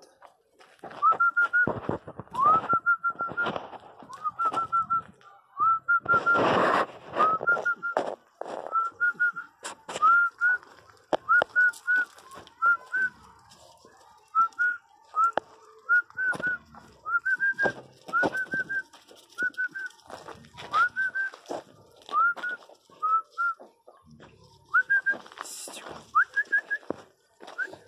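Miniature pinscher whining: short high whines that slide up and level off, repeated about one or two a second, with a louder rough noise about six seconds in.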